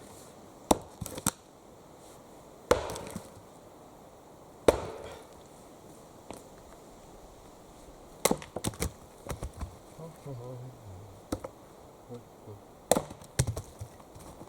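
Axe strikes chopping wood: sharp cracks at irregular intervals, the two loudest near three and five seconds in ringing on briefly. A quicker run of lighter hits follows around eight to nine seconds in, and a few more near the end.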